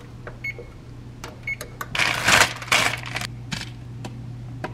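Electric oven's control panel beeping twice as its buttons are pressed, about a second apart, followed by bursts of paper rustling, over a steady low hum.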